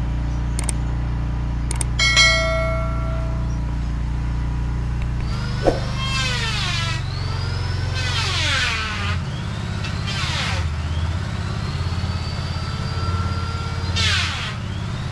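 Added intro sound effects over a steady low hum: sharp clicks and a bright chime about two seconds in, as from a subscribe-button animation, then four sweeping sounds that slide steeply down in pitch. The sound cuts off suddenly at the end.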